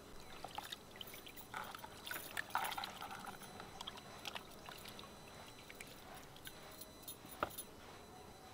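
Hands swishing and rubbing green bell peppers in a tub of water, with small splashes and drips, busiest a couple of seconds in. A single sharp knock comes near the end.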